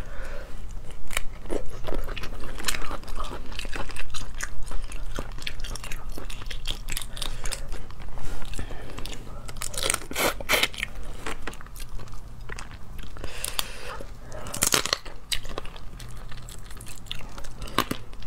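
Crayfish shells in chili sauce being cracked, peeled and bitten, with chewing in between. There are irregular sharp cracks throughout, and a few louder ones past the middle.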